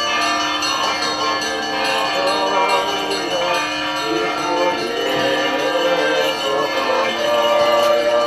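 Church bells ringing continuously, many overlapping tones sounding together, with voices joining over them from about two seconds in.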